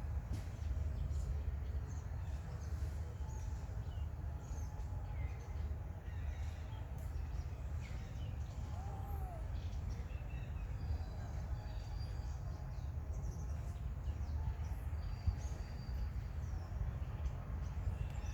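Outdoor ambience: a steady low rumble with many short, high chirps and calls scattered over it, and one short arched call about nine seconds in.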